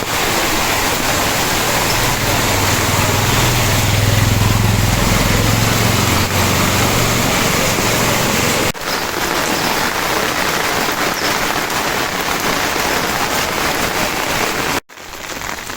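Heavy rain pouring steadily, a dense hiss of water with a low steady rumble under it for the first half. The sound breaks off sharply twice.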